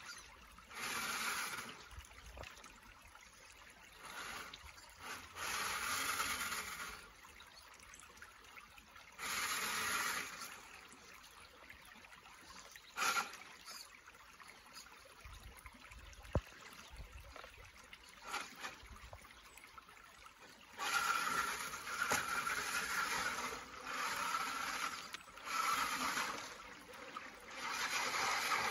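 Radio-controlled off-road car's motor and drivetrain whining in short bursts of throttle as it crawls over creek-bed rocks, then in a longer run near the end as it drives out through the shallow water, splashing. Creek water runs steadily underneath.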